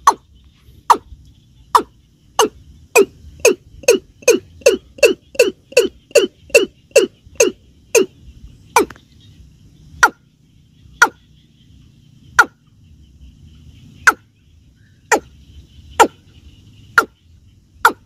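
Watercock (keb-keb) calling: a series of short, sharp notes, each dropping quickly in pitch. They start at about one a second, quicken to a run of about three a second, then slow back to about one a second.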